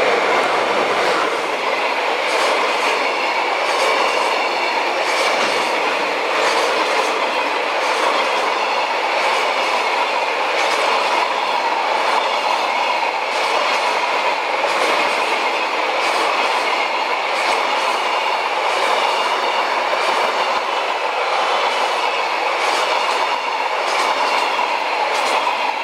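A container freight train rolling past close by, its wagon wheels going clickety-clack over the rail joints in a regular repeating beat over a steady rolling rumble and hiss. The DF200 diesel locomotive's engine sound fades in the first second as it moves on.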